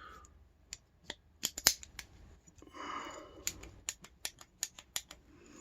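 Small brass padlock being worked with its key: a string of sharp metallic clicks and snaps as the lock is operated.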